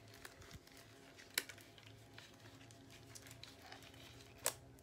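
Quiet room with a low steady hum, broken by a few faint taps and two sharp clicks, one about a second and a half in and one near the end.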